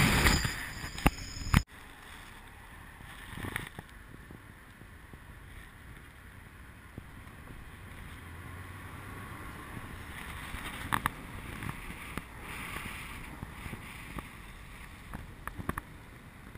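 Steady road and wind noise of a car driving, heard from a camera mounted on the car's outside. A louder sound at the start cuts off abruptly just under two seconds in, and a few faint clicks come later.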